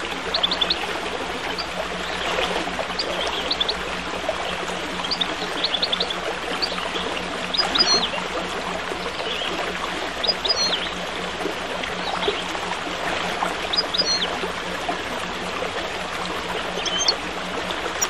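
A stream babbling steadily, with small songbirds chirping over it in short, quick high phrases that recur every few seconds. A faint steady low hum runs underneath.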